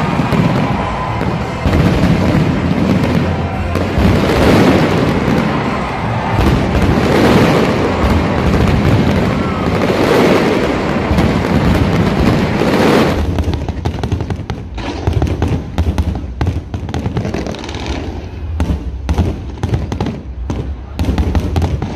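Aerial fireworks going off in a dense, continuous barrage of bangs and crackling. About halfway through it changes to separate sharp pops and crackles with short gaps between them.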